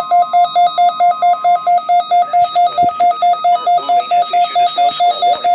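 Weather radio alert tone: a loud, rapidly pulsing single-pitched beep, about five beeps a second, sounding for a snow squall warning.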